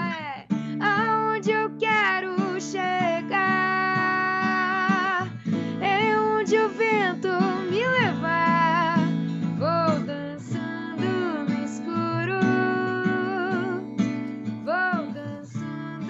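A woman singing with long held, gliding notes over a strummed acoustic guitar, heard through a video-call feed.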